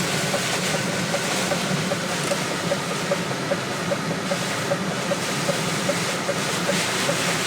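Heavy wind and rain beating on a truck, heard from inside the cab as a steady rushing noise, with a faint regular tick about three times a second.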